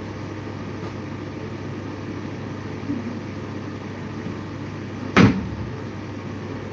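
Steady low mechanical hum of a running kitchen appliance, with one sharp loud knock about five seconds in.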